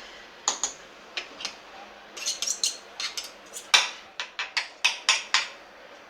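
Kitchen utensils clinking and tapping against cookware: a quick, irregular run of sharp clicks, the loudest a little under four seconds in.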